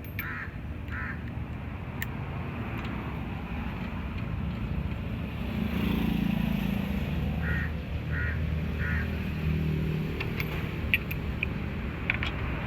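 A motor vehicle's engine running nearby, swelling about six seconds in, with a few sharp metallic clicks and short high calls in groups of three.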